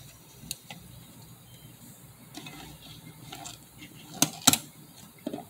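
Hands handling a 1955 KMZ Zenit-S film camera while loading film: light scraping and small clicks of the metal body and cover. A little past four seconds in come two loud sharp mechanical clicks in quick succession, and another click just before the end.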